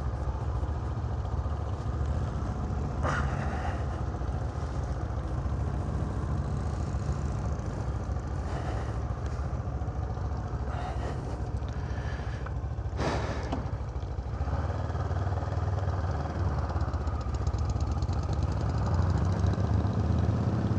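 Kawasaki Ninja 650R's parallel-twin engine idling steadily at low speed, with a couple of short knocks. It gets a little louder near the end as the bike gets under way.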